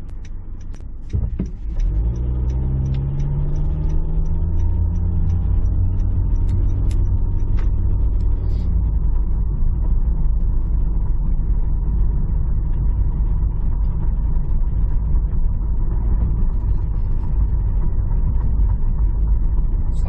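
Car pulling away and accelerating, its engine note rising over several seconds, then a steady low rumble of engine and road noise as it drives on.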